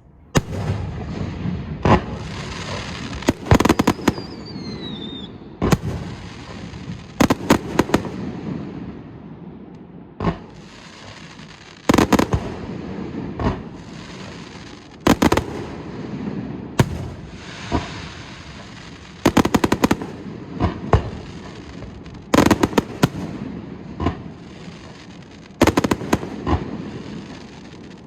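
Fireworks display: aerial shells bursting in a string of loud bangs, often several in quick succession, over continuous crackling. A falling whistle sounds about four seconds in.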